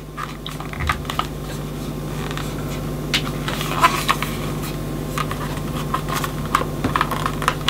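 Small motor of a portable cassette tape converter player fast-winding the tape, a steady whir that builds up over the first couple of seconds and then holds. A few sharp plastic clicks from the player being handled come in the second half.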